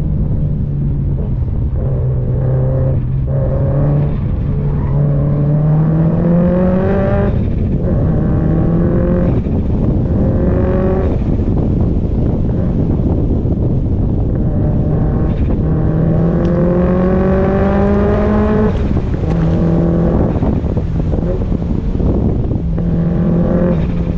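Performance car's engine and exhaust under hard acceleration: the revs climb in rising sweeps and drop back sharply several times, at gear changes or lifts.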